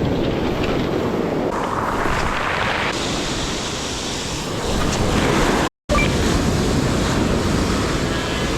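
Surf breaking on a beach, with wind buffeting the microphone. The sound cuts out for a split second a little past the middle.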